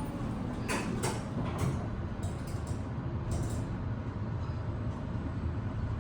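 Modernized Otis elevator running with a steady low hum, with a few short clicks and creaks from the car and door mechanism in the first few seconds.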